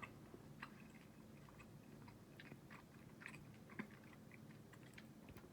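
A person chewing a mouthful of roast beef: faint, irregular soft mouth clicks.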